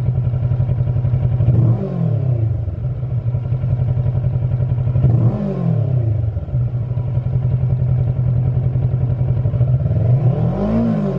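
Kawasaki Versys 650's parallel-twin engine idling through a Lextek CP8C aftermarket silencer, blipped three times: each rev climbs briefly and drops straight back to idle, the last one a little higher and longer.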